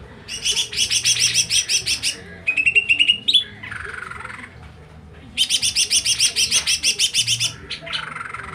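A songbird in full song: loud runs of rapid repeated chirps, about two seconds each, near the start and again past the middle. Between them comes a short, higher trill that climbs at its end, then a softer buzzy phrase.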